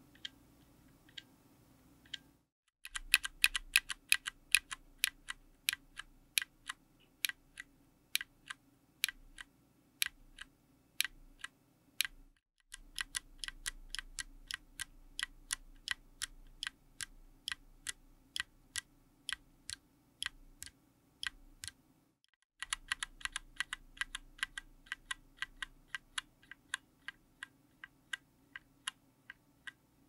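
Zeal Clickiez 40g mechanical keyboard switches in an FR4 plate and aluminium case, one key pressed over and over, each press a sharp click-clack. It starts with a few faint presses of a bare linear switch with no keycap, then three runs of louder presses on a GMK double-shot ABS keycap at about three to four a second, split by two short silences. The middle run is the tactile version and the last is the linear version.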